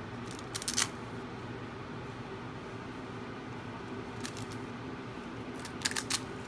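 Crocodile monitor lizard working a balut egg in its jaws, giving short clusters of clicky crackles: one about a second in, one around four seconds in and one near the end. A steady low hum runs under them.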